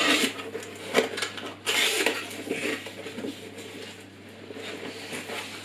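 Cardboard box being opened by hand: cardboard scraping and rustling, with a few sharp taps and clicks.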